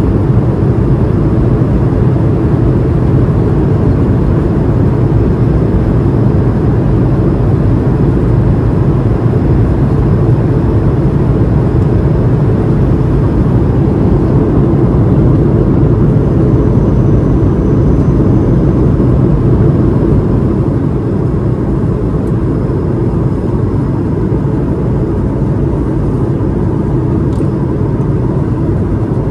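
Steady cabin noise of an Airbus A220-300 in flight, heard from a window seat by the wing: the deep, even rush of its Pratt & Whitney PW1500G geared turbofans and the airflow over the fuselage. The noise drops slightly in level about two-thirds of the way through, then holds steady.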